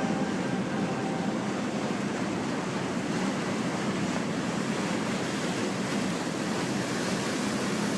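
Steady rushing of wind and water, with no distinct events.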